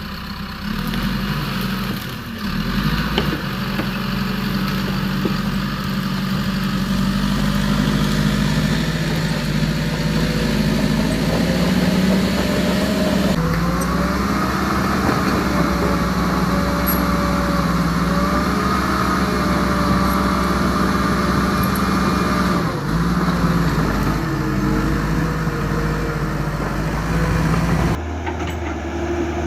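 Radio-controlled construction models running: a steady motor sound with whining tones that rise and fall as the machines work. The sound changes abruptly several times.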